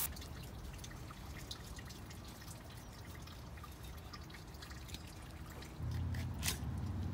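Faint, scattered small clicks and crackles of a fillet knife cutting through a redfish's scales and skin. A low hum comes in about six seconds in.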